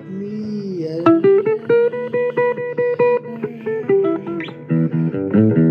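Blues guitar playing an instrumental passage between sung lines, picking single notes and strumming.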